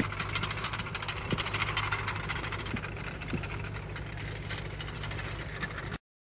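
A motor engine running steadily: a low hum with a rushing noise over it, cutting off abruptly about six seconds in.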